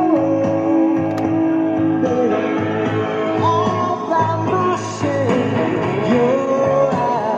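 Rock song with singing and guitar, playing through the Sharp GF-8787 boombox's speakers, thin in the bass.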